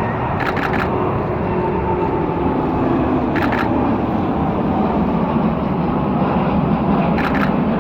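Jet airliner taking off, its engines a loud steady rumble that grows slightly. Over it come three short rapid-fire bursts of clicks from a Canon 5D Mark III shutter in continuous shooting: one about half a second in, one in the middle, one near the end.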